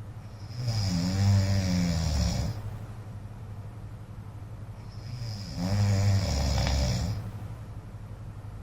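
A man snoring in his sleep: two snores, each about two seconds long and about five seconds apart, over a steady low hum.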